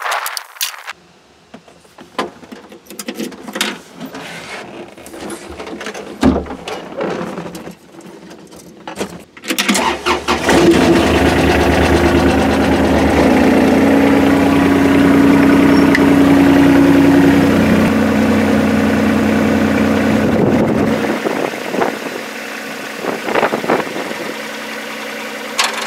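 Knocks and clatter of the mini excavator's cab door and seat. About ten seconds in, the Yuchai YC15-7's diesel engine cranks and starts, runs loud and steady at high revs, and drops back to a quieter idle about 21 seconds in.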